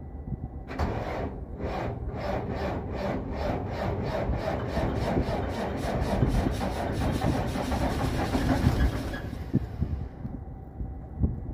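A Detroit Diesel Series 60 inline-six diesel being cranked on its starter in freezing cold, with a rhythmic pulse that quickens for about nine seconds before the starter stops near the end. It is a hard cold start: the engine almost doesn't fire, which the owner puts down to the cold since the batteries are new.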